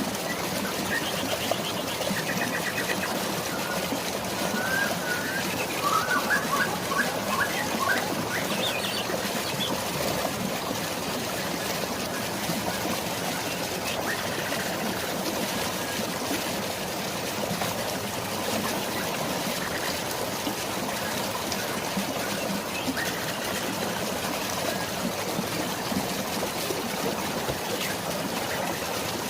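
Steady flowing water, a continuous splashing rush, with birds chirping and trilling over it, most busily in the first several seconds, then only a few scattered calls.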